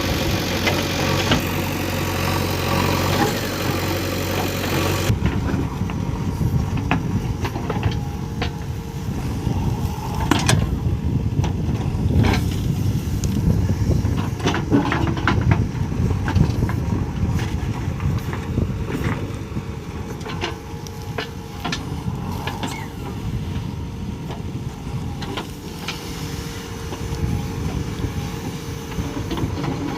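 Diesel engine of a JCB 3DX backhoe loader running as it works, with scattered clanks and knocks over the engine noise. The sound changes abruptly about five seconds in.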